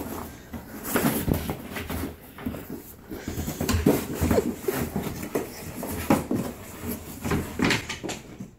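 An Alaskan Malamute mouthing and pawing a cardboard box on a wooden table top and pulling it off, with irregular scrapes, knocks and rustles of cardboard.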